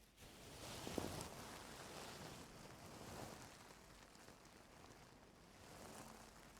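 Faint rustling and scraping of ear-cleaning tools worked in an ear close to the microphone, loudest about a second in.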